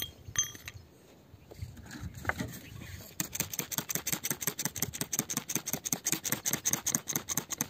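A few scattered clicks, then from about three seconds in a fast, even run of scratchy strokes, roughly eight a second: a metal digging tool scraping through dry soil around buried crystals.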